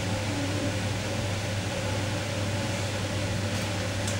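Steady low hum with an even hiss over it, a constant fan-like background drone that does not change.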